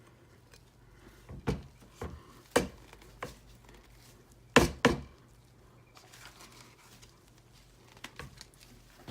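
Irregular hard taps and knocks of soap-making tools and containers being handled, about seven in all, with the loudest a quick double knock near the middle.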